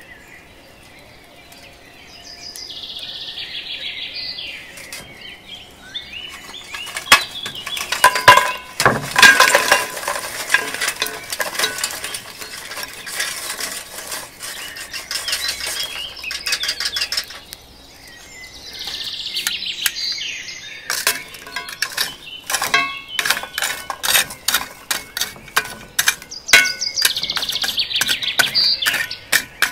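Lump charcoal being stirred and turned with metal tongs in a cast-iron skillet: pieces clinking and knocking against each other, the tongs and the pan, in many sharp clicks that come thickest near the end. Birds sing in the background three times.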